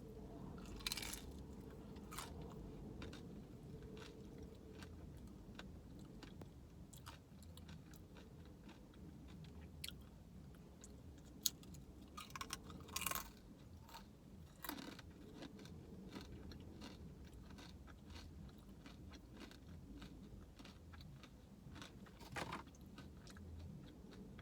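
Close-up chewing of a fried crab rangoon (cream cheese wonton), with scattered crisp crunches and mouth clicks; the sharpest crunches come about a second in, around the middle and near the end.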